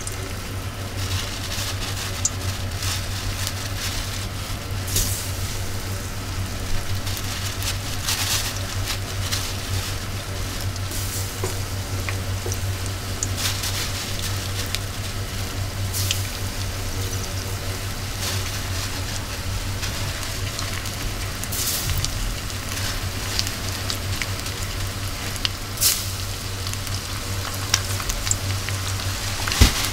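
Chika (Japanese surf smelt) deep-frying unbattered in hot oil: a steady sizzle with scattered sharp crackling pops, over a steady low hum.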